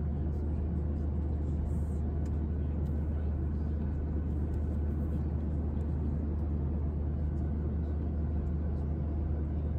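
Steady cabin noise of a Boeing 737-800 in flight, heard from a passenger seat: an even, deep rumble of the engines and rushing air with no change in pitch or level.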